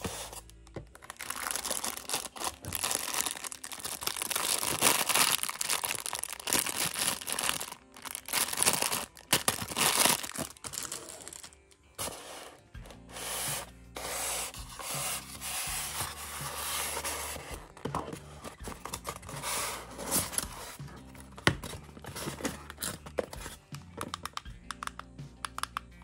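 Clear plastic packaging bag crinkling and rustling as it is pulled off a toy excavator and rubbed against a styrofoam tray, densest for the first twelve seconds. After that come lighter rubbing and handling clicks, with background music throughout.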